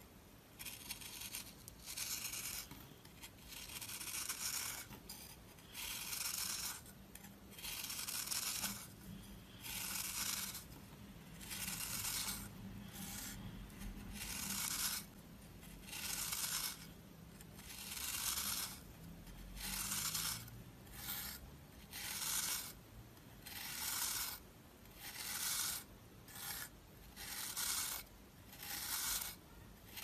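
A knife blade scraping across the face of a round bar of dry, crumbly soap, shaving it off in repeated strokes about one a second.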